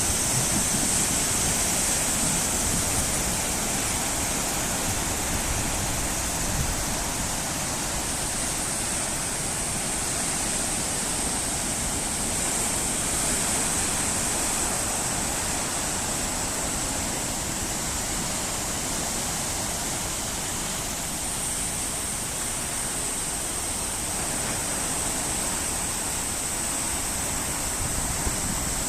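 Ocean surf from a large typhoon swell, a continuous rushing wash of breaking waves, with a high hiss that swells and fades over it.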